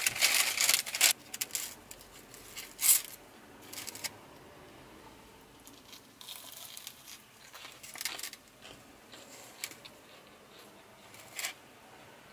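Thin plastic bag crinkling and rustling in short irregular bursts as it is handled, loudest in the first second and near 3 s, with a few smaller rustles later.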